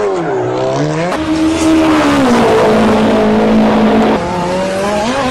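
A racing-car engine sound effect revving. Its pitch drops just after the start, climbs again about a second in, holds steady through the middle, then rises once more near the end.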